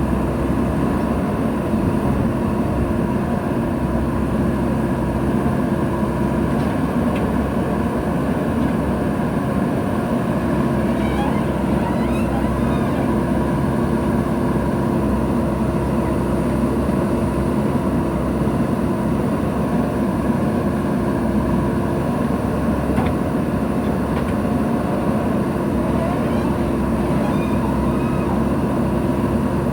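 JCB backhoe loader's diesel engine running steadily under working load, with a few faint knocks about eleven to thirteen seconds in.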